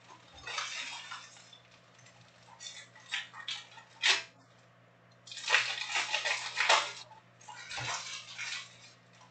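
Trading card packs being torn open and their plastic wrappers crinkling, with cards shuffled and set down on a stack. The sound comes in short, irregular rustling bursts, with a couple of soft thumps.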